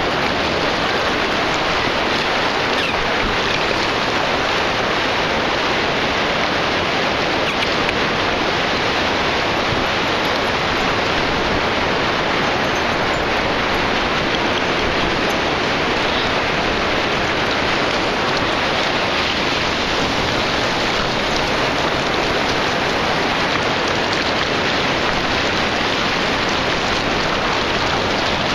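Ocean surf on a beach: a steady, unbroken wash of breaking and running water.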